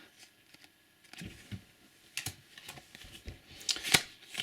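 Trading cards being handled and flicked through: a quiet first second, then a string of short card clicks and rustles, growing busier near the end.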